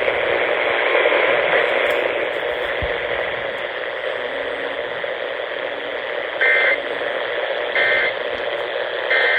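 AM radio hiss and static, then three short Emergency Alert System end-of-message data bursts (warbling two-tone digital bleeps) about a second and a half apart, which close the alert test.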